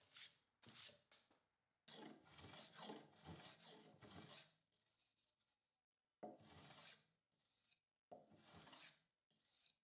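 Faint, intermittent rubbing and scraping on wood from hand-tool work on a laminated pine top, in four separate spells with short quiet gaps.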